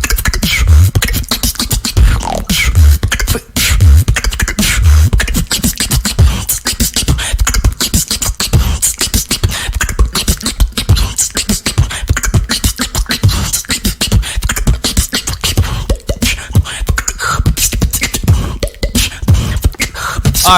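Female beatboxer's fast routine: a dense rhythm of kick drums and rim shots, the rim shots carrying a bongo-like tone. Heavy low kicks dominate the first few seconds.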